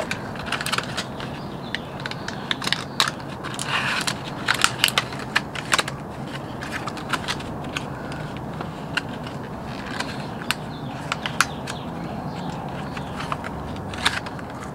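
Crinkling and crackling of a clear plastic lure package being handled in the hands: irregular sharp crackles, thickest in the first half and sparser later.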